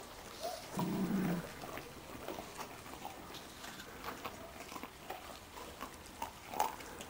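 Dog gnawing a raw cattle bone on concrete: scattered small clicks and scrapes of teeth on bone, with a short low growl about a second in and a sharper crack near the end.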